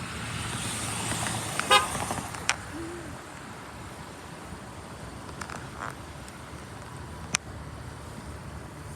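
Car going by with a rising and falling hiss of tyres, a quick rattle of clicks, then one short, low car-horn toot about three seconds in.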